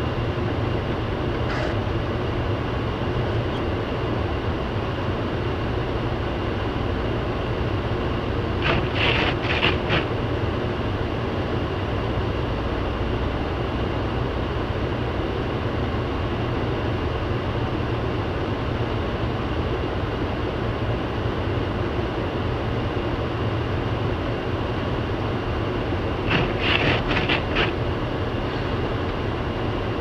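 Steady cabin noise of a car driving on a snow-covered road, with the heater fan blowing on high for defrost. A short run of three or four quick clicks comes about nine seconds in and again near the end.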